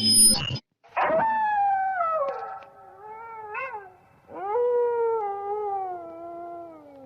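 Howl sound effect from a ghost-sound app: two long animal howls, the first sliding down in pitch from about a second in, the second rising then falling slowly away. The tail of a previous effect cuts off in the first half-second.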